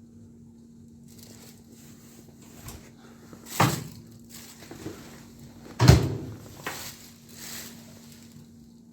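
Two loud knocks, about three and a half and six seconds in, with softer clatter between and after them, over a steady low hum.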